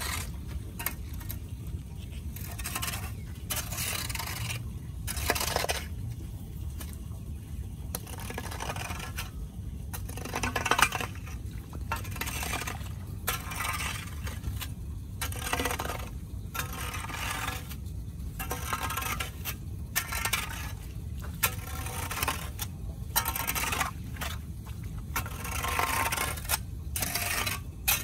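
Repeated scraping strokes of a push broom and a metal rake dragged through shallow water on wet concrete, clearing debris from a clogged curb drain inlet. The strokes come irregularly, about once a second, with metallic clinks, one louder knock partway through, and a steady low rumble underneath.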